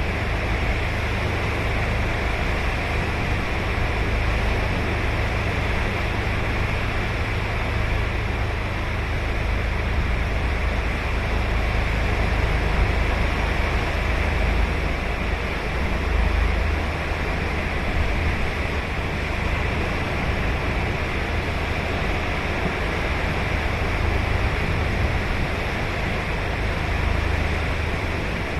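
Ocean surf breaking and washing onto the beach, a steady continuous wash of waves with no single wave standing out, swelling slightly a couple of times.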